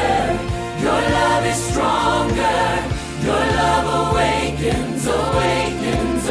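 Upbeat Christian music: a steady drum beat under sustained voices singing in harmony.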